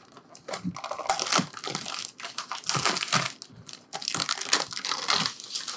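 Plastic film wrapping crinkling and crackling in irregular bursts as it is handled and pulled off a new Cricut Maker cutting machine.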